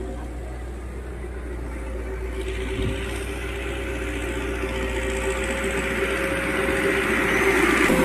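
Dump truck's engine running with a steady whine while earth pours out of its raised tipper bed; the rush of sliding soil comes in about two and a half seconds in and grows louder.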